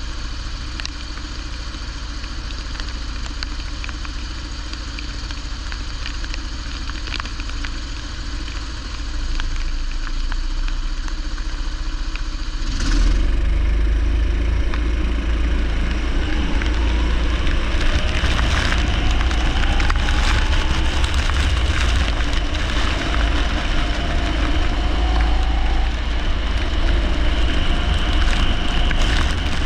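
Leisure racing-kart engines running on a wet track, with a steady crackling hiss of rain and spray. About 13 seconds in the sound suddenly gets louder and fuller, and from then on the engine pitch rises and falls as the kart accelerates and lifts off.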